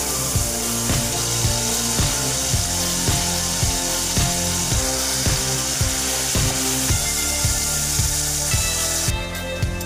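Background music with a steady beat, about two beats a second, over a steady hiss of onion-and-tomato masala frying in oil in the pot. The hiss cuts off about a second before the end, leaving the music.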